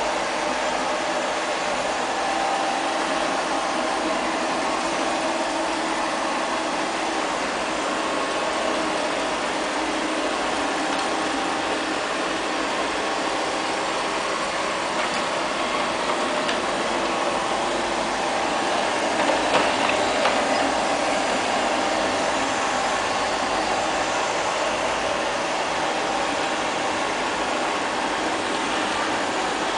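LL-306 (X500) robot vacuum cleaner running on a tiled floor: a steady whir of its suction fan and side brushes, briefly louder about two-thirds of the way through.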